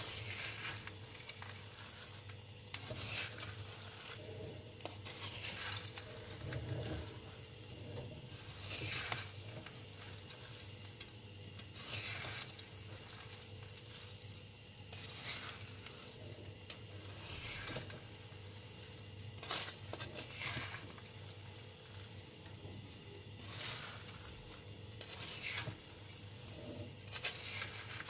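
A wooden spatula stirring peanuts coated in sugar in a metal pan, a dry rustling scrape every two to three seconds, over a steady low hum. The peanuts are kept moving so the sugar sticks to them and does not burn.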